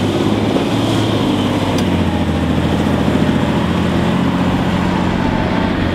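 Tatra 815 TP 6x6 truck's diesel engine running hard and steady under load as it drags a weighted pulling sled.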